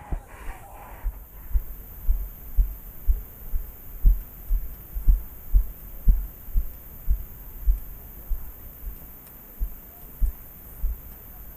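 Footsteps of a walking paintball player, heard as low, dull thuds about twice a second through a head-mounted camera, slowing slightly near the end.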